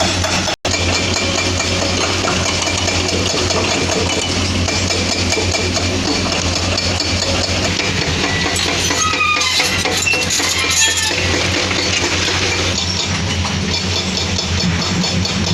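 Hydraulic excavator's diesel engine running steadily under load, with a brief cut-out about half a second in and short metallic squeaks and clinks about nine to eleven seconds in.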